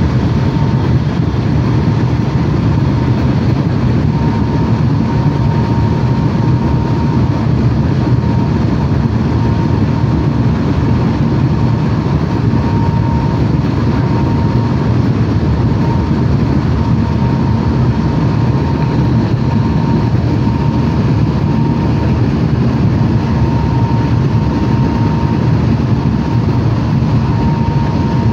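Steady rumble of a Eurobahn regional train running at speed, heard from inside the passenger car, with a faint high whine that comes and goes.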